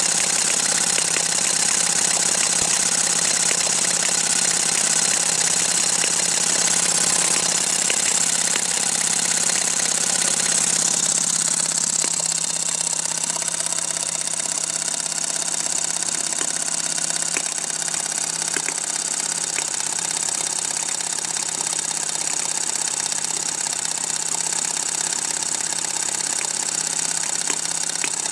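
Electric drill spinning a homemade rotary engine prototype as its starter: a steady motor whine with the engine's rapid combustion pops and knocks running through it. The engine fires every turn or every other turn but does not run on its own, which the builder puts down to exploding gases leaking into the carburetor and past the bearings of poorly made parts.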